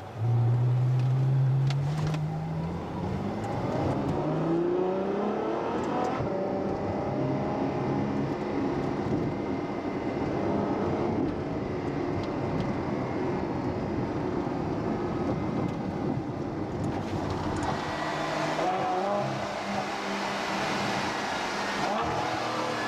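Ferrari F12 Berlinetta's V12 engine heard from the passenger seat. It comes in loudly on a sudden burst of throttle and climbs in pitch as the car accelerates, then runs on at speed with road noise, rising again in the last few seconds.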